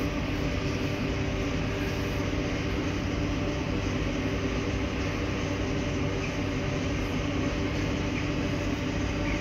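CFR Class 41 (060-EA) electric locomotive standing under power with its cooling blowers and transformer running. A steady hum with several held tones that does not change.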